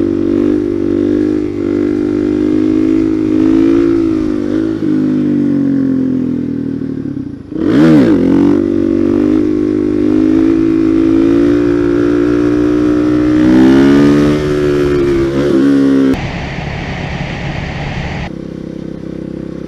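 Supermoto motorcycle engine under way, its pitch rising and falling with the throttle, with a quick dip and recovery in the revs about eight seconds in. The revs climb again around fourteen seconds, then the engine drops to a lower, quieter run for the last few seconds.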